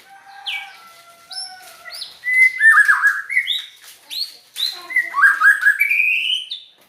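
White-rumped shama singing a varied run of clear whistled notes, with sliding phrases, quick stuttered note groups and a rising phrase near the end.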